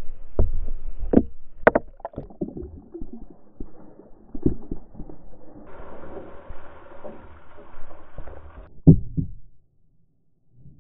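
Ice cubes knocking and clattering into a bucket, heard from inside it. A few seconds later comes a steady rush of ice water pouring and splashing out as the bucket is tipped over, ending in a couple of heavy thumps.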